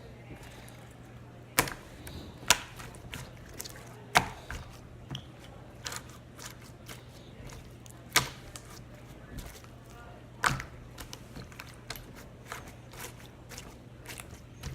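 Irregular sharp clicks and taps, a handful of them loud and many faint, over a steady low hum.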